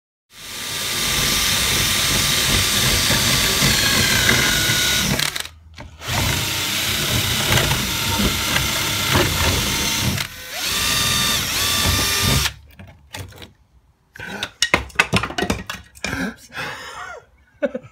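Bosch cordless drill-driver boring a ring of holes through pine wall cladding to cut out a round hole, running in long bursts of about five seconds, then in short stop-start bursts near the end.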